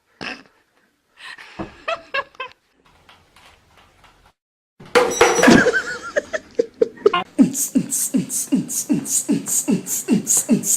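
A rhythmic vocal beat like beatboxing: short falling notes, each with a hissing hi-hat sound, about three a second, starting about five seconds in after a few short scattered sounds.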